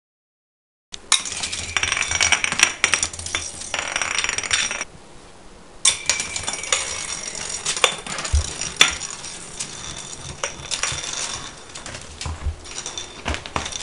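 Small toy spinning top whirring and clattering on a hard floor: a thin high steady whir with sharp clicks as the top knocks and wobbles, several loud clicks around six to nine seconds in.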